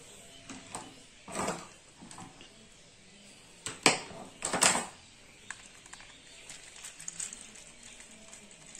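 Small clicks and scrapes of a wire being fitted into the screw terminal of a fuse holder on a plastic extension board, with the terminal then worked by hand and screwdriver. A few sharper clicks come about four seconds in.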